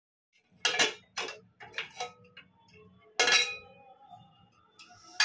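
Aluminium pressure cooker's inner-fitting lid being worked out of the pot: a series of sharp metal clanks and scrapes against the rim, some ringing briefly. The loudest come about three seconds in and at the very end.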